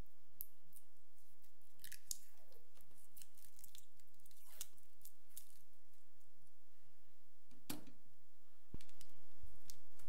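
Parts of a split keyboard's case being handled and fitted together by hand: scattered light clicks, taps and short scrapes. Near the end comes a sharper click, then a low thump.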